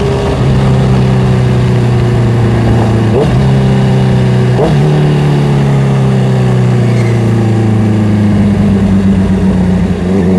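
Honda CBR650R's inline-four engine running under way, with two brief breaks in the engine note about three and four and a half seconds in, then a slowly falling note as the bike eases off, over wind and road noise.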